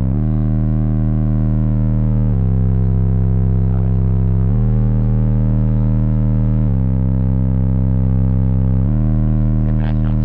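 B2 Audio 12-inch subwoofer on a B2 Audio Mono V4 amplifier at 1 ohm playing loud, distorted sustained bass notes that step between two pitches about every two seconds. A few brief clicks come near the end.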